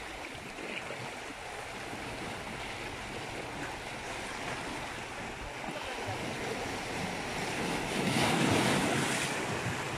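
Sea waves washing steadily, with a louder surge about eight seconds in.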